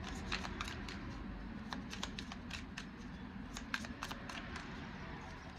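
Deck of tarot cards being shuffled by hand: a quick, irregular run of soft card flicks and taps as the cards slide and drop into the pack.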